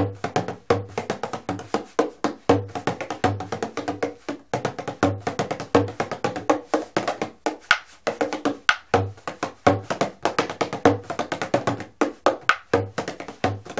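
Bodhrán, a goatskin frame drum, played with a tipper in a fast, steady rhythm: quick light strokes with a deeper bass stroke about every three-quarters of a second.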